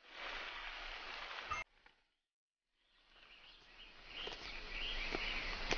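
Tropical rainforest ambience, a steady hiss of forest sound that cuts off suddenly about a second and a half in, then after a second of silence fades back in with chirping bird calls.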